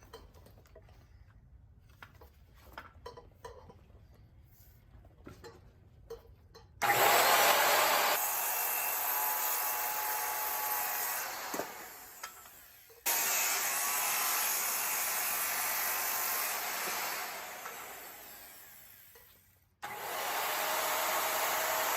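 Circular saw cutting the step notches into a wooden stair stringer: a few seconds of light tapping and handling, then the saw starts abruptly and cuts, fades down, and starts again twice.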